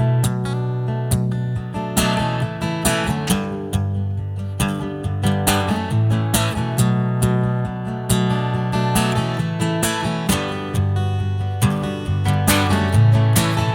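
Acoustic guitar strummed in a steady rhythm, an instrumental passage of a folk song with no singing.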